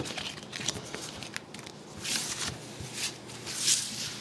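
Hockey card box being handled and opened: a run of small clicks and taps, then three short rustling scrapes of packaging in the second half, the last the loudest.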